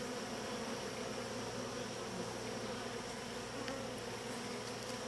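Honeybees steadily humming and buzzing around an open hive and its brood comb.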